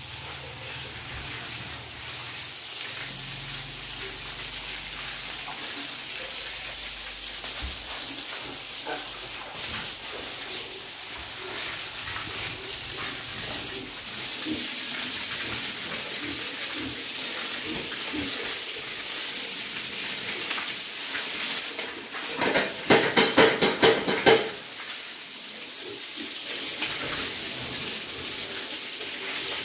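Water from a garden hose spraying onto the wet concrete floor of a pigsty, a steady hiss and splatter. About three-quarters of the way through, a loud stuttering burst lasts about two seconds.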